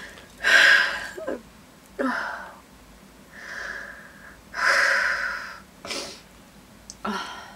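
A woman crying, taking about six deep, shaky breaths in and out with short pauses between them as she tries to calm herself.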